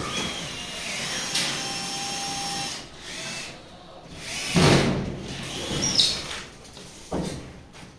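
Handheld power drill driving a screw up through a plaster ceiling board into the furring frame, its motor whining steadily for about three seconds. A few shorter, sharper knocks and bursts follow in the second half.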